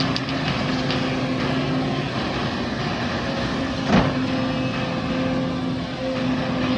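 Heavy diesel earthmoving machinery running steadily, with a single loud knock about four seconds in.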